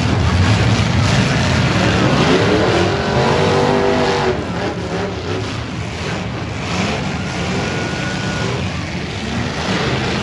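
Demolition derby cars' V8 engines running hard and revving together, one engine's pitch rising and falling about three seconds in.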